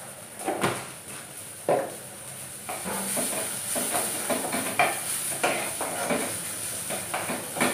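Wooden spatula stirring and scraping julienned carrots around a black wok, over a steady light sizzle of frying oil. The scraping strokes come slowly at first, then about two a second.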